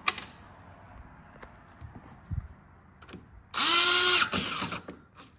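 Cordless drill/driver running a short screw into the motorcycle's fairing panel: about three and a half seconds in, the motor whine spins up, holds for under a second and winds down. Before it come a few small clicks of the screw and bit being handled.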